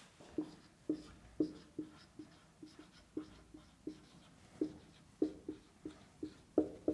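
Whiteboard marker writing a word on a whiteboard: a run of short, squeaky strokes, irregularly spaced at about two a second.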